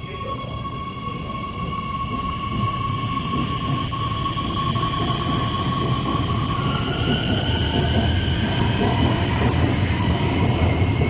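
Metro train pulling out of an underground station and gathering speed. The rumble of wheels on rail grows louder, and a steady high whine from the drive gives way, about seven seconds in, to whines that rise in pitch as the train accelerates.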